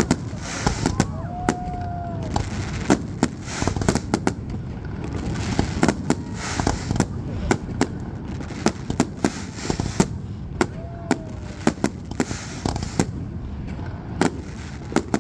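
Fireworks display: shells bursting in sharp bangs at irregular intervals, some in quick clusters, over a continuous low rumble of distant explosions.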